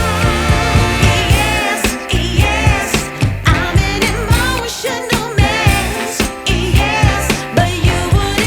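Background pop/soul song with a woman singing over a steady beat and bass.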